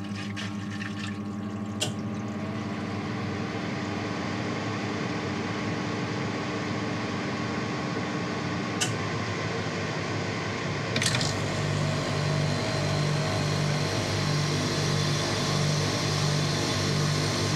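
Dometic self-contained marine air-conditioning unit running with a steady hum and held tones; about eleven seconds in a click comes as the compressor starts on its soft starter, and the sound grows louder, with a low rumble and an even low pulsing.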